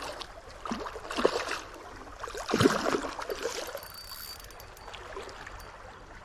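Stream water running steadily, with a few louder surges of rushing noise about one second in and again near the middle.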